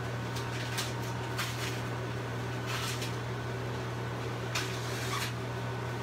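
Steady hum of chocolate melting machines, with a handful of short crinkling snips as scissors cut through the thick plastic wrapping of a chocolate block.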